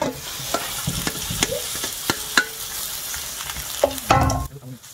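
Kimchi-pancake (kimchi jeon) batter sizzling in hot oil in a frying pan as it is poured in and spread with a metal spatula, with scattered scrapes and ticks of utensil on pan. A louder clatter comes about four seconds in.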